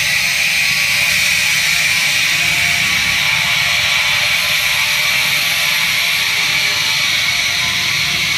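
Air compressor running steadily and pumping air into its newly fitted 1000-pound tank, a continuous hiss over a low hum.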